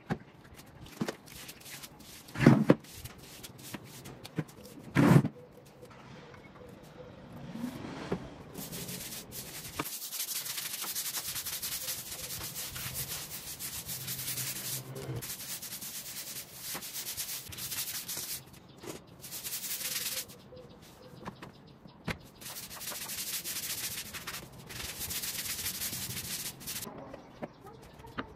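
Scrubbing on a hard surface: long stretches of scratchy rubbing, after two loud knocks in the first few seconds.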